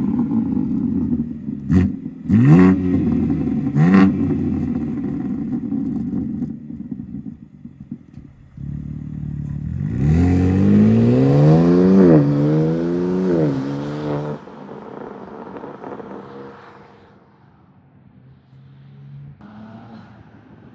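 BMW G80 M3's twin-turbo inline-six exhaust, with stock downpipes and muffler and a single resonated midpipe, revving: three quick blips in the first four seconds, a steady stretch, then about five seconds of revs climbing and falling before cutting back suddenly to a quiet idle.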